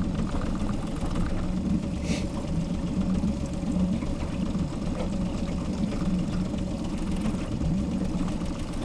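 Boat motor running steadily at idle, a continuous low rumble.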